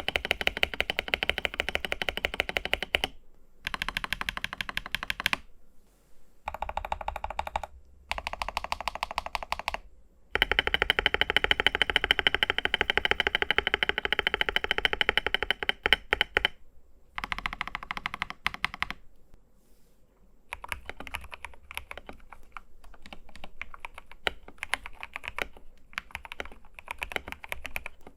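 Fast typing on a modded TM680 mechanical keyboard fitted with Akko linear switches: dense runs of keystrokes broken by short pauses, growing softer and sparser about two-thirds of the way in.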